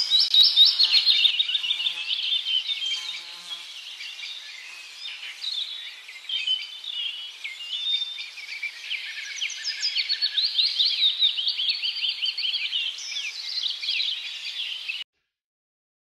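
A dense chorus of small birds chirping, many short, quick chirps overlapping one another; it cuts off suddenly about a second before the end.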